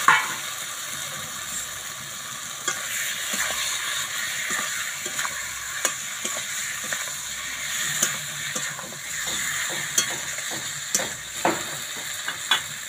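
Chicken pieces sizzling in hot mustard oil with onion, spices and cashew-almond paste in a metal pan, while a spatula stirs and scrapes through them with scattered clicks against the pan. A loud knock at the very start.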